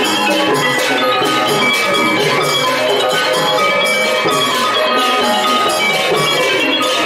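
Thai hard-mallet piphat ensemble playing: ranat xylophones and gong circles in dense, fast mallet runs over barrel drums, at a steady loud level.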